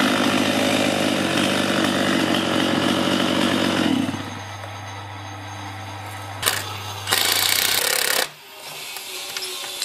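Two-stroke chainsaw running loudly just after finishing a cut through a log, then dropping about four seconds in to a much quieter, steady low engine note. Near the end a sharp click and a brief, loud rushing noise.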